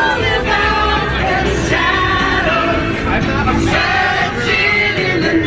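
A group of young women singing along loudly together to a song, with the music playing underneath.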